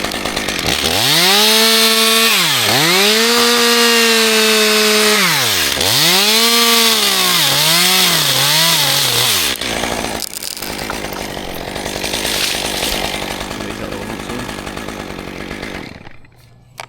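Two-stroke chainsaw revved hard three times, each time holding a high, steady pitch before dropping back, then a few quick throttle blips. The engine sound stops about ten seconds in, leaving a steady rushing noise that fades out near the end.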